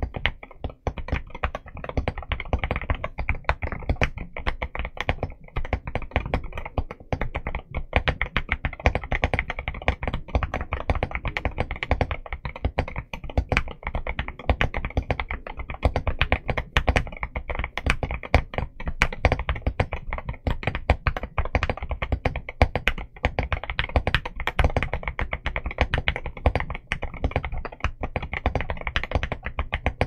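Continuous fast typing on an Akko MU02 75% mechanical keyboard with a walnut wooden case, in stock form, fitted with Akko Rosewood switches and MOA PBT keycaps. It is a steady, dense stream of key clacks with no pauses.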